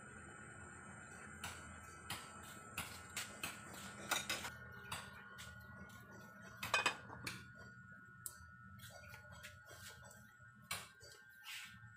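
Metal spoon clinking and scraping against an aluminium pot while stirring chopped jackfruit, then the metal lid set on the pot. Irregular clicks and knocks, the loudest two about four and seven seconds in.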